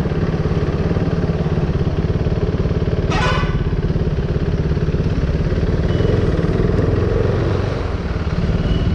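KTM RC sport bike's single-cylinder engine running steadily at low speed. A short, high beep, like a horn, sounds about three seconds in.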